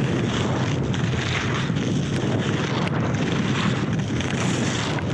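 Steady rush of wind over an action camera's microphone while skiing at speed, mixed with the continuous hiss and scrape of Head i.Race Pro race skis carving on snow.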